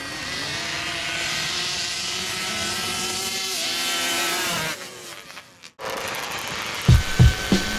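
Two-stroke drag-racing quad engines running flat out on sand, their pitch rising and falling around three and a half seconds in. The engine sound cuts off suddenly after about five seconds, and deep thumping beats of music start near the end.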